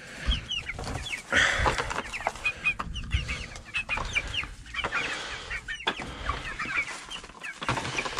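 Flock of chickens clucking and cheeping in many short, falling calls, with scattered knocks and a brief burst of rustling about a second and a half in.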